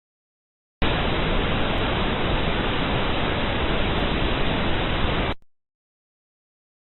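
Steady static-like hiss, presented as the 'sound' of one of Earth's quasi-satellites, that starts abruptly about a second in and cuts off suddenly about five seconds in, with silence on either side.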